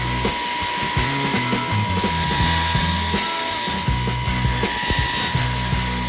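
Belt sander grinding down the edge of a sheet-metal patch panel to shorten it, a steady grinding hiss throughout. Background music plays underneath.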